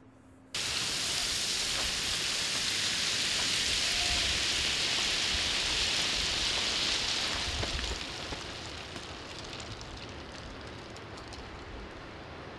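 Loose gravel rushing and rattling as a person slides down a steep gravel slope on foot, a steady hiss that starts abruptly and eases off about eight seconds in, leaving quieter trickling and clicks of stones.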